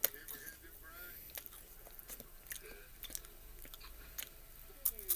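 Biting into and chewing a crisp Voortman strawberry wafer cookie: a sharp crunch as the first bite is taken, then chewing with scattered crisp crunches and a cluster of louder ones near the end.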